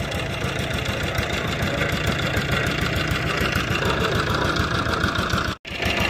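An engine idling steadily with a fast, even chugging rhythm. It drops out completely for a moment about five and a half seconds in.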